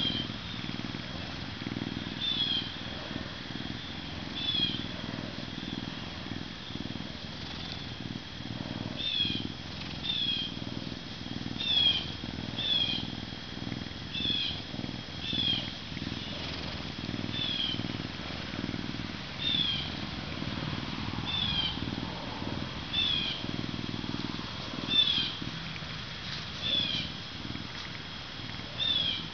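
Canada lynx purring steadily as it is scratched under the chin, with short high chirps repeating about every second or so above the purr.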